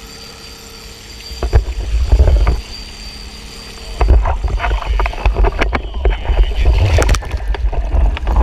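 A low rumble of wind buffeting the microphone aboard a fishing boat under way on the lake. It comes in a short gust about a second and a half in, then sets in steadily from about four seconds in, with scattered knocks.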